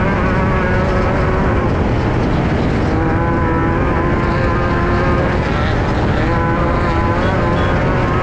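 In-car sound of a Class 5/1600 off-road race car at speed: its air-cooled 1600 cc VW engine running hard at mostly steady revs, over a heavy low rumble.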